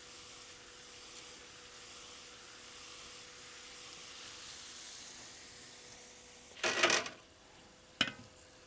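Thin potato slices deep-frying in hot lard, a steady sizzle. Near the end the sizzle drops away and there is a brief loud clatter, then a sharp click about a second later.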